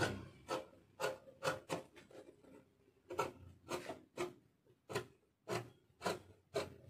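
Scissors snipping through chantilly lace fabric: a series of sharp, short cutting snips, about two a second, with a brief pause a little past two seconds in.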